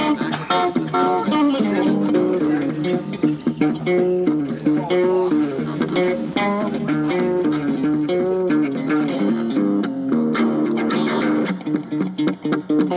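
Background music: an instrumental piece led by plucked guitar over a bass line, with quickly changing notes.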